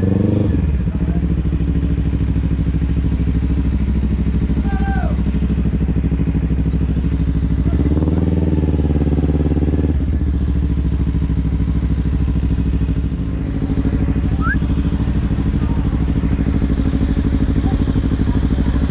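Kawasaki Ninja 300's parallel-twin engine running at steady revs while riding, with a brief rise in revs about eight seconds in.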